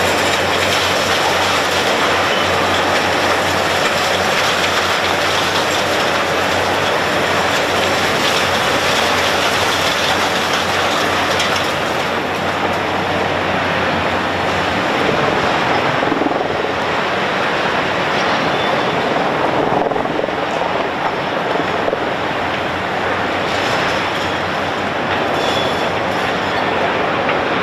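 Hitachi demolition excavator's hydraulic crusher jaws biting through reinforced concrete. The noise is a steady, dense grinding and crunching of concrete and rebar, with the machine's engine running underneath as a low hum.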